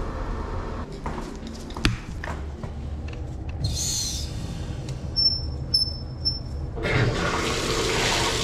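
Water running from a bathtub spout, starting suddenly about seven seconds in as the shower valve is turned on. Before it come a few handling clicks and three short high chirps.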